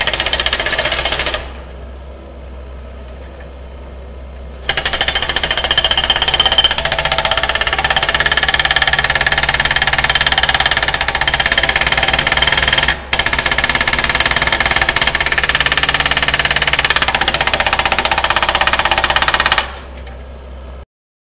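Hydraulic rock breaker on a Komatsu PC78US-6 excavator hammering a boulder in a rapid, continuous rattle. It stops for about three seconds a second and a half in, then hammers again for about fifteen seconds, breaking off briefly once midway. It stops shortly before the end, and the sound then cuts off abruptly.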